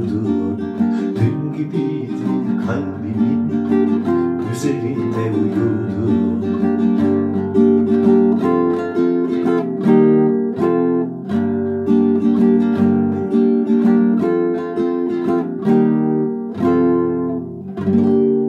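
Acoustic guitar played solo in the song's instrumental close, picked and strummed chords in a steady flow of notes. Near the end a final chord is struck and left ringing.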